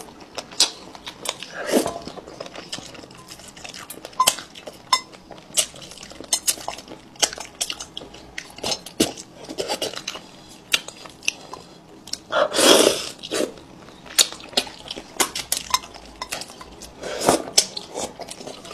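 Close-miked eating: chopsticks clicking and tapping against a plate of fish, with chewing, and two louder slurps about twelve seconds in and again near the end.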